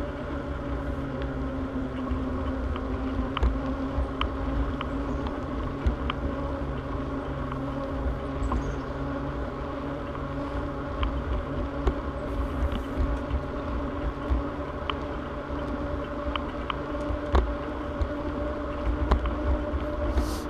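Bicycle rolling along a paved trail: wind rumbles on the microphone over a steady low hum from the ride, with scattered light clicks and ticks.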